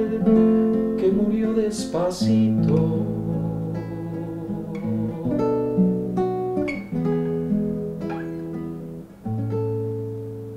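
Acoustic guitar playing the instrumental close of a ballad, plucked and strummed notes ringing over low bass notes, ending on a last chord that rings out and fades.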